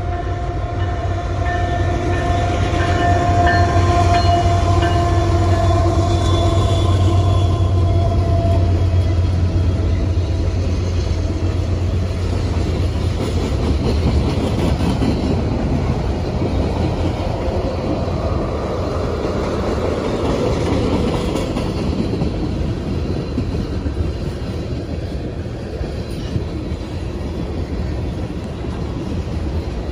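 Canadian National freight train going by: the diesel locomotives' low engine hum and steady whine are loudest in the first several seconds and fade. After that, loaded ethanol tank cars roll past with a continuous steel-wheel rumble and clatter on the rails.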